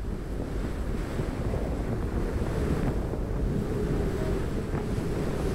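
Strong storm wind buffeting the phone's microphone: a steady, heavy low rushing.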